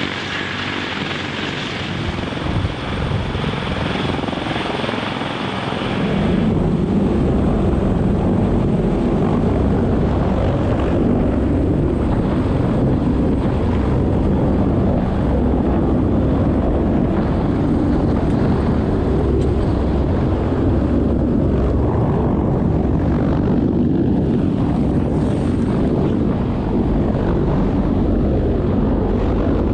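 CH-53K King Stallion heavy-lift helicopters running with rotors turning. About six seconds in, the sound changes abruptly to a louder, deeper, steady rumble of rotor noise and downwash from directly beneath a hovering helicopter.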